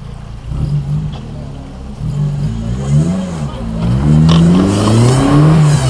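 Suzuki Samurai's 2000 cc engine revving up and down again and again while the 4x4 climbs a steep muddy bank under load, growing louder over the last couple of seconds.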